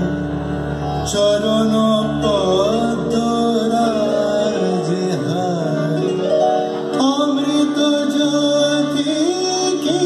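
Background music: a Bengali song, a singing voice with gliding, ornamented melody over sustained instrumental accompaniment.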